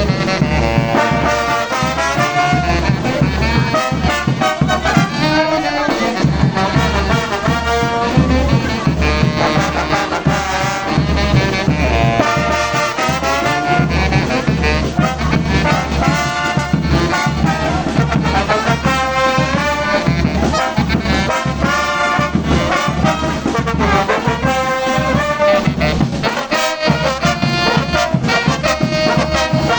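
A brass orchestra of trombones and trumpets playing a lively, fast-moving tune over a steady drum beat.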